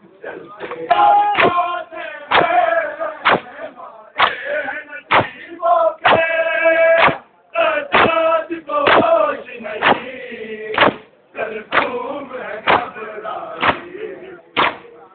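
Crowd of men performing matam: hands slapping bare chests together in a steady beat of about one strike a second, with male voices chanting a lament between the strikes.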